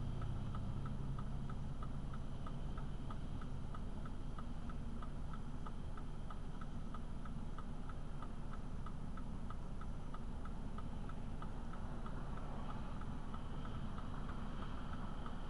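Car turn-signal indicator ticking steadily inside the cabin, over the low rumble of the engine and road.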